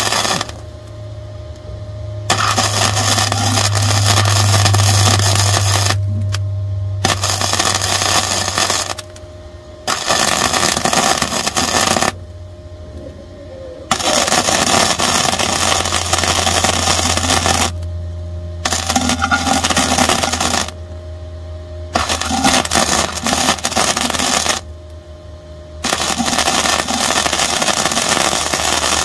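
Wire-feed welder arc crackling and sizzling in runs of two to four seconds, breaking off briefly about seven times between runs, over the machine's steady low hum while a weld is filled in.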